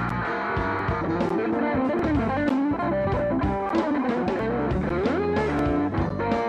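Electric guitar playing a lead lick in G minor: quick picked single-note lines, with a note sliding upward about five seconds in.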